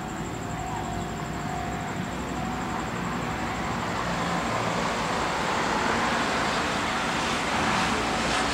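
Noise of an approaching vehicle: a steady low rumble and hiss that grows gradually louder.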